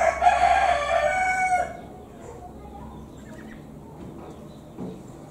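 A rooster crows once: one long, loud call of under two seconds right at the start. Afterward there is only faint background sound.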